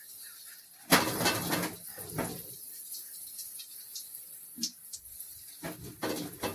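Puff puff batter deep-frying in hot oil, sizzling steadily with a high hiss. A louder, short pitched sound comes about a second in, with smaller ones near two seconds and near the end.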